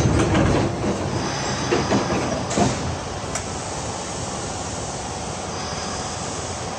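Hankyu 8000 series electric train running, heard from inside the front car: a steady rumble of wheels and running gear with a few clicks in the first few seconds, then settling to an even drone.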